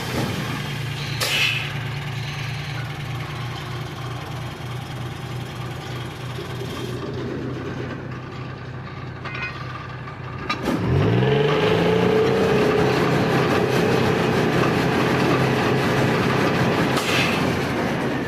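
Workover rig's diesel engine idling, then revving up about ten seconds in and holding at a higher, louder speed as it is throttled up to run rods. Two short hisses, about a second in and near the end.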